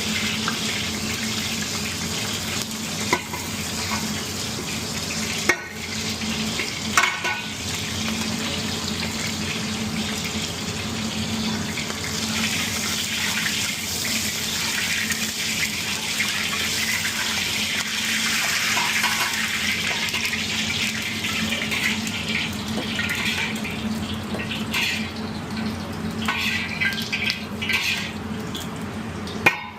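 Kitchen tap water running steadily into a sink, with a few short knocks of dishes or utensils, one about three seconds in, two around six to seven seconds, and one at the very end.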